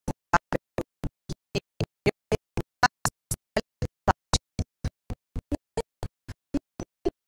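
A steady train of short, sharp sound bursts, about four a second, with dead silence between each, as if the soundtrack were chopped into fragments.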